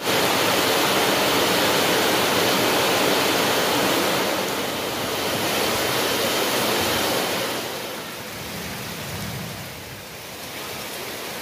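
Heavy rain pouring in strong wind: a steady rushing noise that drops noticeably in level a little past halfway and stays softer to the end.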